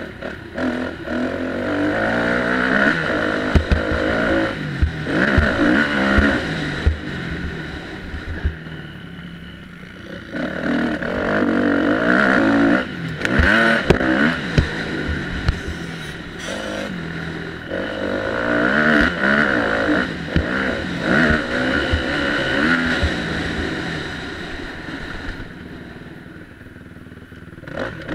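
Motocross bike engine revving hard as the rider rides a dirt track. The pitch rises and falls off several times as the rider accelerates and eases off, with short knocks from the rough ground.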